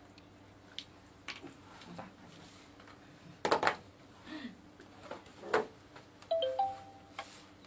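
Scattered knocks and rustles of people moving about, the loudest about three and a half and five and a half seconds in, over a faint steady hum. About six seconds in, a brief electronic chime of a few short beeps.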